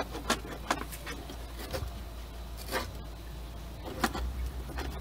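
Several short clicks and scrapes of hard plastic parts as the drive belt and white plastic pulley wheels are worked off a Dolphin Nautilus robotic pool cleaner, over a steady low rumble.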